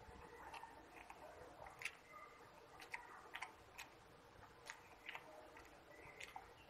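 Faint, irregular mouth clicks and smacks of a man chewing a mouthful of rice and Malabar spinach eaten by hand.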